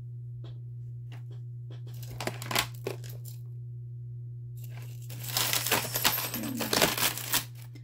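Small metal jewelry pieces clicking and clinking as they are handled. There are a few light clicks at first, then from about five seconds in a dense rattle of rummaging through a pile of costume jewelry. A steady low hum runs underneath.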